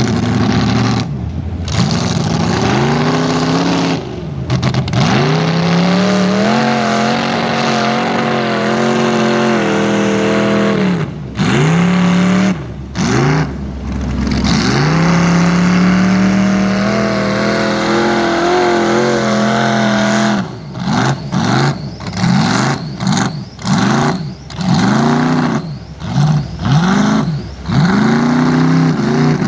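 Lifted square-body pickup mud truck's engine revving hard as it churns through the mud, its pitch climbing and falling with the throttle. Near the end the throttle is blipped over and over in quick succession.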